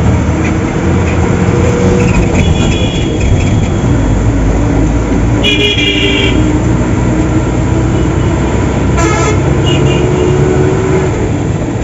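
Bus engine and road noise while under way, with horns honking: a blast of just under a second about halfway through, a shorter one about three seconds later, and a few fainter toots near the start.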